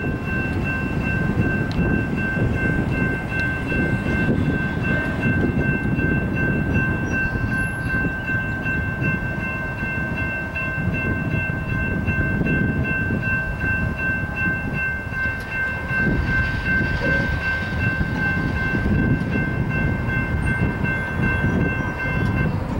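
Railroad grade-crossing warning bell ringing steadily as a fast, even, high ding over a low rumble. The bell stops near the end.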